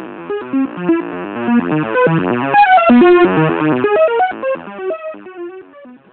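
Synthesizer playing rapid chains of short blip-like notes, about ten a second, jumping about in pitch like sound effects, with a quick upward run about two and a half seconds in; it dips in loudness briefly near the end.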